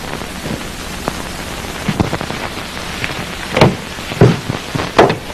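Steady hiss and crackle of an old film soundtrack, with a few short, sudden sounds in the last couple of seconds.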